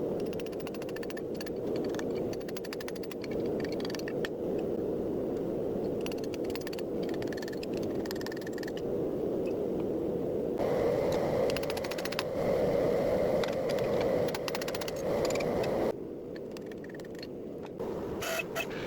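Forge burner roaring steadily, with scattered light metal clicks and scrapes. Between about 11 and 16 seconds in the roar is louder and a thin steady whine joins it; both drop off at about 16 seconds.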